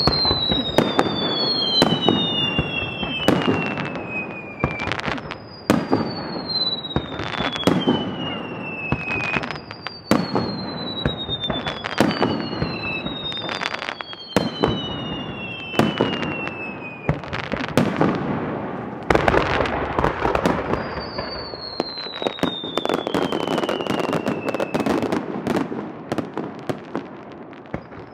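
Fireworks display: a fast run of sharp bangs and crackling bursts, with long whistles that fall in pitch every few seconds. The bangs thin out and grow quieter near the end.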